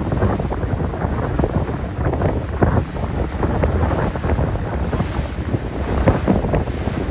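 Strong wind buffeting the microphone in uneven gusts, over the rush of open harbour water.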